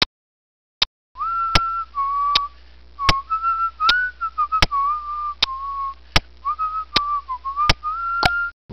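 A person whistling a wandering tune, with a faint low hum under it, over a short sharp click about every three-quarters of a second that keeps time like dubbed footsteps. The whistling starts about a second in.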